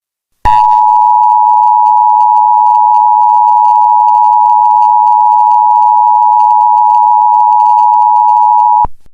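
Emergency Alert System attention signal: the two-tone alarm of 853 and 960 Hz sounded together. It starts about half a second in, holds steady for about eight seconds and cuts off sharply near the end.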